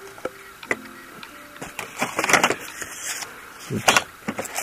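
Cardboard charts and small metal tools being handled in a drawer of a machinist's tool chest: rustling with scattered clicks and knocks, loudest about two seconds in and again just before four seconds.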